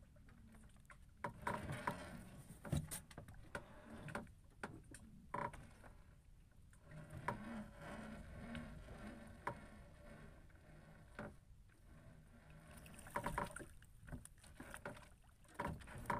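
Small wooden boat on the water with low water sounds against the hull. A fishing longline is hauled in by hand over the gunwale, with scattered knocks and clicks from the line and boat.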